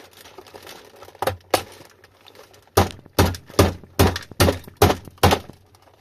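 Sharp knocks and cracks on a hard plastic e-bike battery case as a tightly held lock barrel is forced out. There are two knocks about a second in, then seven quicker, evenly spaced ones, about two and a half a second.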